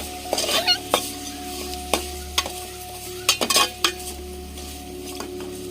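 Chicken pieces sizzling as they fry in a pan, with a metal spoon stirring and scraping against the pan in short clatters, bunched about half a second in and again past the middle.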